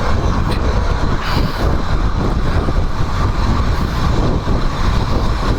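Steady wind rush over the microphone and engine and road rumble from a Royal Enfield Himalayan 411 motorcycle riding at speed.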